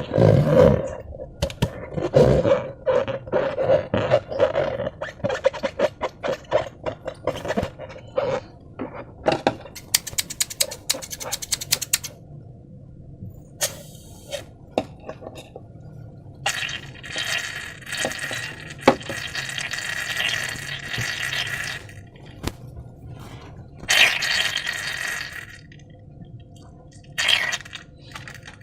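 Slime being squeezed and worked by hand, with many quick wet clicks and squelches in the first half, then a few longer hissing rushes.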